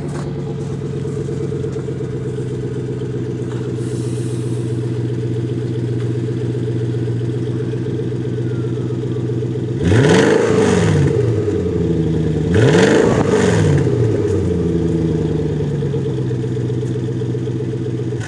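A 2006 Lincoln LS V8 with a muffler delete (resonators and catalytic converter kept) idles through its dual exhaust, heard close to the tailpipes. It is revved twice, about ten and thirteen seconds in, each rev rising and dropping back to idle, and the engine is shut off at the very end.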